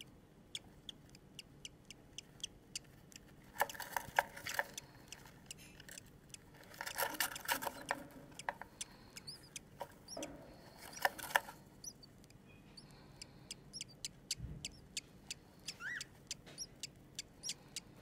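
Budgerigars in a nest box: a steady run of short, high peeps a few a second, with three louder bursts of chirring chatter about 4, 7 and 10 seconds in.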